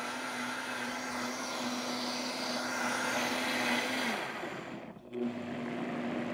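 Vitamix blender motor running on high, blending a full jar of carrots, pineapple, ginger and ice into juice. About four seconds in it winds down with a falling pitch. A second later it starts again at low speed, run briefly to clear the bubbles at the top.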